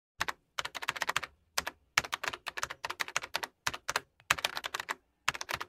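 Computer keyboard typing sound effect: rapid clicks in quick runs, with short pauses between them.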